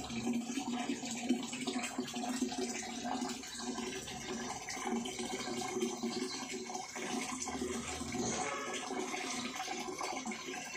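Water running steadily through an agarwood oil distillation setup: the flow of cooling water and distillate through the stainless-steel condenser into the glass oil separator.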